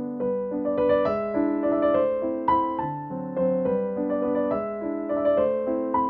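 Background piano music: a melody of single struck notes over held lower notes, several notes a second.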